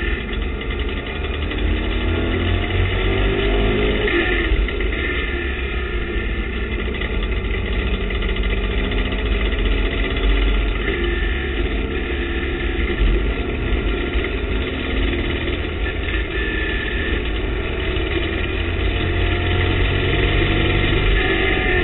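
TVR Tuscan race car engine heard loud from inside the open cockpit at racing speed. The engine note rises and falls repeatedly as the car accelerates and lifts through the corners, over constant wind and road noise.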